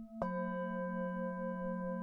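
A Tibetan singing bowl struck about a quarter second in and ringing on with several steady overtones. It comes in over the pulsing, wavering hum of a higher bowl that was already sounding.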